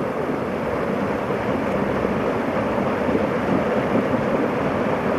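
Steady rushing of a small creek waterfall spilling over boulders.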